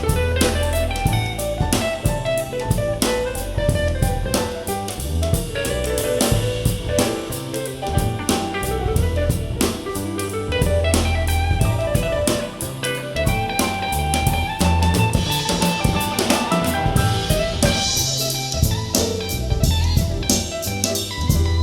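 Soul jazz instrumental with a drum kit keeping a steady beat, bass, guitar and melodic lines, played back as a sound sample of in-ear monitors.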